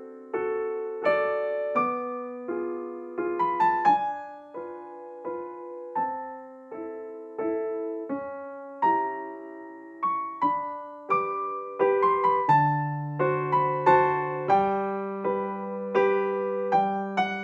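Background piano music: a gentle melody of single struck notes and chords, with lower bass notes joining in the second half.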